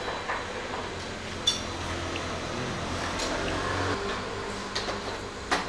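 Wonton noodles being slurped and eaten from a bowl with chopsticks, over a steady background hum, with two short sharp clicks, one about a second and a half in and one near the end.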